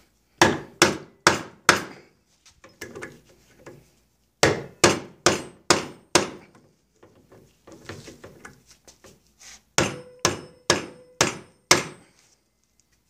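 Hammer blows on a hand impact screwdriver, striking in three bursts of four or five blows about two a second, to break loose a seized screw on a Johnson 9.5 HP outboard's gearcase.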